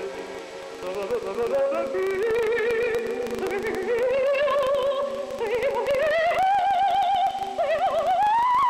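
Music: a single melody with heavy vibrato climbing step by step to a high held note, over sustained lower notes.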